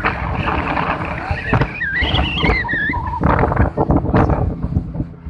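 Motorboat running under way: a steady engine rumble mixed with water churning and slapping along the hull.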